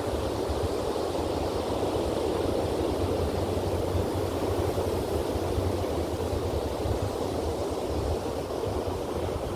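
Steady ocean surf washing on the shore, with a low wind rumble on the microphone.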